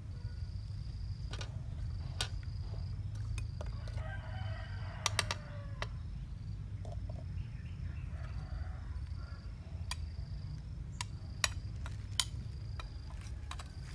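Metal spoon clicking and scraping against a wok and a bowl as stir-fried eel is spooned out, over a steady low rumble. A rooster crows in the background about four seconds in, and a short high chirp repeats every second or so.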